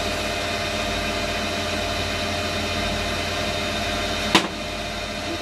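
Steady mechanical hum of engine-room machinery, with a single sharp click a little over four seconds in.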